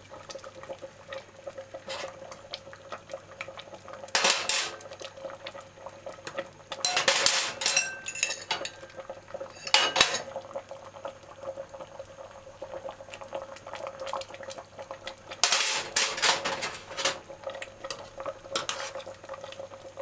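Metal cooking spoon and fork clinking and scraping against an aluminium pot and its lid in several short clattering bursts, as boiled green banana and yam are lifted out and fork-tested for doneness.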